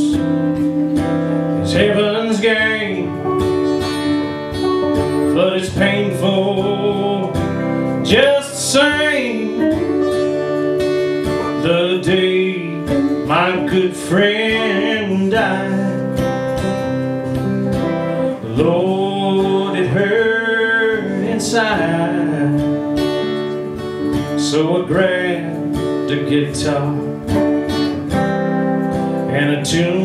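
Live song played on an acoustic guitar, strummed, with an electric lead guitar playing bending melodic lines over it.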